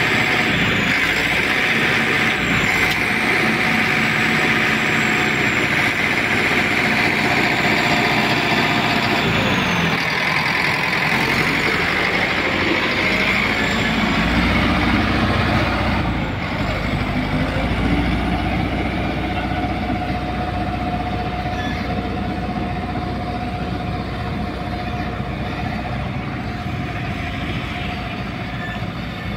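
Caterpillar motor grader working: its diesel engine runs steadily under load while the blade scrapes through soil. The sound eases off in the second half as the grader moves farther away.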